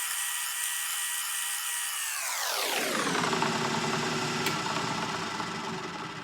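Drill press motor running while drilling a small 5/64-inch hole in a lathe-turned coupler; its whine holds high, glides down in pitch about two and a half seconds in, then settles lower and fades toward the end.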